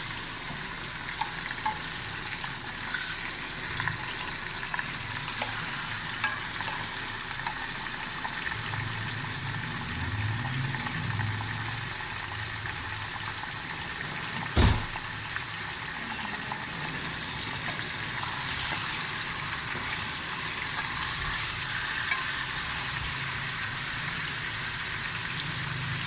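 Chicken pieces searing in hot cooking oil in a karahi, a steady sizzle, with a single sharp knock about halfway through.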